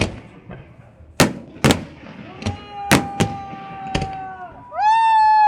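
Fireworks shells bursting at close range in a quick series of sharp bangs, one or two a second. A steady pitched tone sounds behind them from about halfway, and a louder one with a slight rise at its start comes in near the end.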